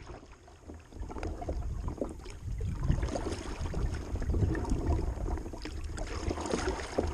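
Kayak paddle strokes splashing and dripping water, blade after blade, with a low wind rumble on the microphone.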